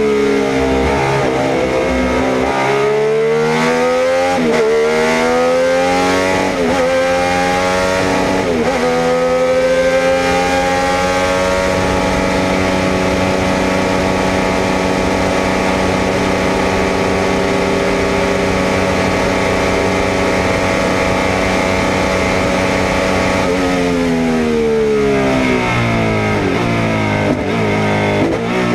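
1976 Alfa Romeo 33 SC 12's 3.0-litre flat-12 racing engine heard from the cockpit under hard acceleration. It revs up through three quick upshifts in the first nine seconds, then holds a steady high pitch for about ten seconds at full throttle. It then falls away as the car slows, with a gear change near the end.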